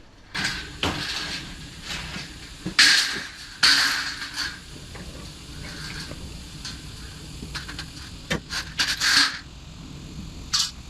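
Scrap aluminum siding being handled and loaded, with short scraping, rattling bursts of sheet metal. The loudest come about three and four seconds in and again around nine seconds in.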